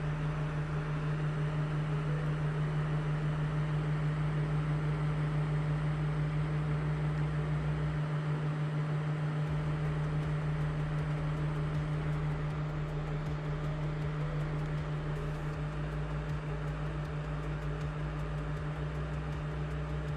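Steady low electrical hum with an even hiss from the QCW pancake Tesla coil's driver power supply while its DC bus voltage is brought up; the coil itself is not arcing.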